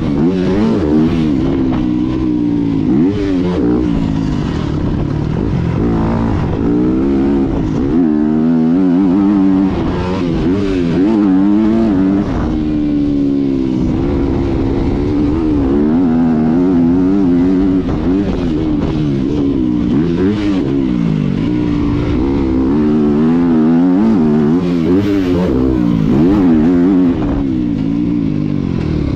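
Yamaha 250 motocross bike's engine revving up and dropping back again and again under hard throttle, climbing in pitch through each gear and falling as the throttle is rolled off.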